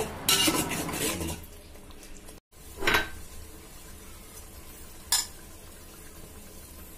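Metal ladle scraping and clattering against a metal cooking pot while stirring fried onions and cashews in oil. After a short pause come two single sharp clinks of the ladle on the pot, about 3 and 5 seconds in.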